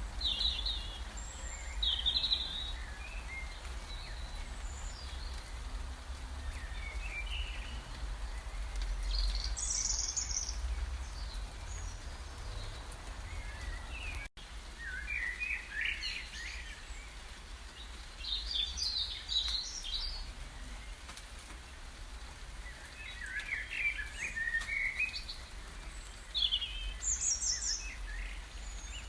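Birds singing and calling in short chirping phrases, over a steady low rumble. The recording drops out for a moment about halfway through.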